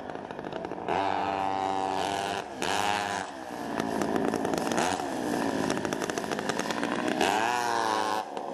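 Vintage multi-engine go-kart dragster's small two-stroke kart engines running hard, their pitch rising and falling as the throttle opens and closes. The throttle lifts briefly about two and a half seconds in and again near the end.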